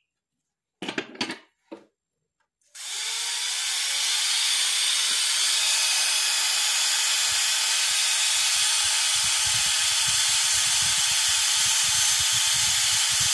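A few handling clicks and rustles, then, just under three seconds in, a low-speed dental contra-angle handpiece starts and runs with a steady high hiss, driving a No. 5 post drill that widens the root canal of an extracted tooth into a post space.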